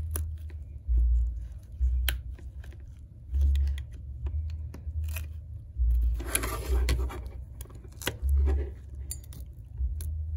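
Thin pry tool clicking and scraping along the edge of an iPhone X as it cuts through the adhesive holding the screen, with a longer scraping, tearing stretch about six seconds in. Dull bumps come from the phone being handled.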